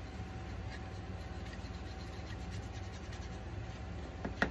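Small paintbrush rubbing and scratching in short strokes across a painted wooden cutout, working in a dark aging finish. Two sharp clicks come near the end.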